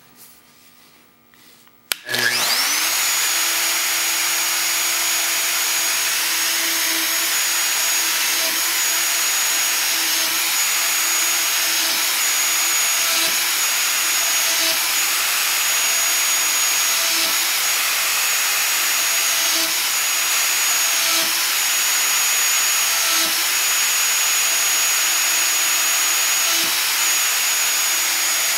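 Festool plunge router with a 3/8-inch spiral fluted bit switched on about two seconds in, its motor winding up quickly to full speed and then running steadily. The pitch dips briefly every second or two as the bit plunges into the wood to cut a mortise.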